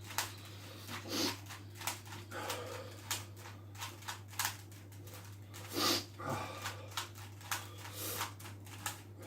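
Plastic Rubik's cube being twisted by hand: quick, irregular clicks and clacks of its layers turning, with two louder breathy sounds about a second in and about six seconds in.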